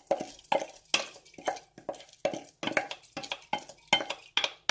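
A kitchen utensil repeatedly knocking and scraping against a dish or container, about four short clinks a second.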